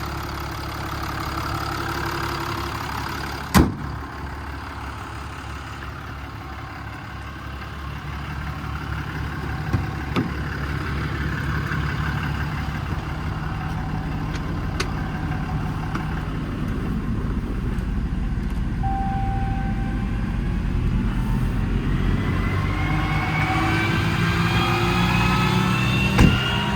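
Cummins 6.7 diesel engine of a Ram 5500 idling steadily, with a few sharp clicks along the way. Near the end a rising whine comes in over the idle.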